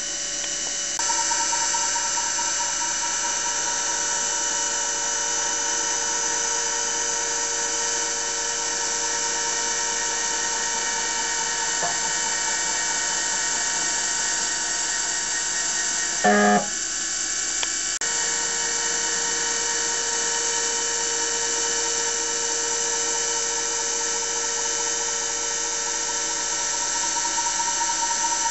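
Small CNC engraving machine running while it engraves. Its spindle gives a steady, multi-toned whine that steps up slightly about a second in. A brief, louder burst comes about sixteen seconds in.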